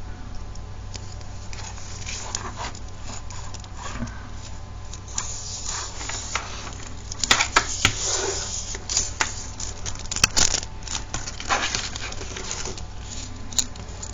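Flat ribbon cable being handled and pulled out to length: irregular light rustles and small clicks, busiest in the middle, over a steady low hum.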